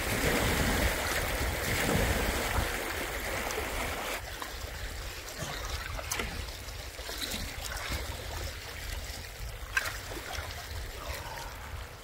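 Outdoor ambience of flowing water with wind rumbling on the microphone, louder for the first few seconds and then easing, with a few faint clicks and knocks later on.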